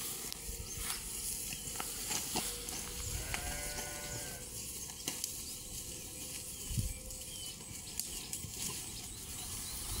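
A sheep bleats once, about three seconds in, a single call lasting about a second, over a low rumble and a few faint clicks.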